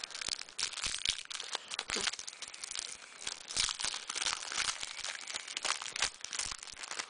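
Wrapper of a trading-card pack crinkling and being torn open by hand, a dense run of irregular crackles.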